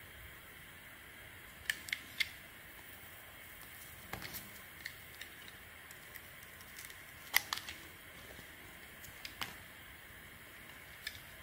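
A small blade carving thin slices off a bar of dry soap, giving sharp, irregular crackles and snaps as the soap breaks under it. There is a cluster about two seconds in and the loudest snap near the middle, over a steady faint hiss.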